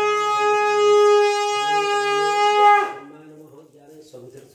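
Conch shell (shankha) blown in one long, steady, loud note that cuts off about three seconds in.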